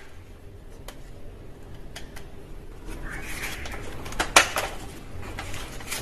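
Plastic clicks and clatter of a toy foam-dart blaster being handled, with one sharper click about four and a half seconds in.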